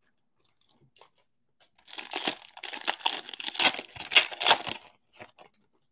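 Foil wrapper of a Donruss football trading card pack crinkling and tearing as it is ripped open by hand, starting about two seconds in and lasting about three seconds, with a few faint ticks of handling before and after.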